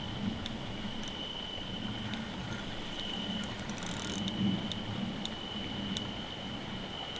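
A fishing reel clicking during a carp fight: scattered single clicks, with a short rapid run of clicking about four seconds in as the drag gives line. A steady high-pitched whine runs underneath.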